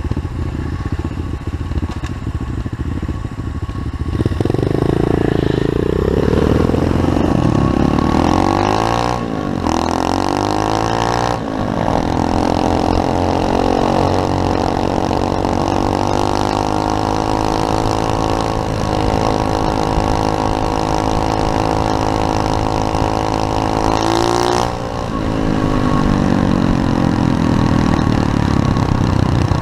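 SSR 125cc pit bike's small single-cylinder four-stroke engine launching hard from a stop and revving up through the gears, with two brief dips at the shifts. It holds high revs for about twelve seconds, then the throttle is shut about 25 seconds in and the revs fall away.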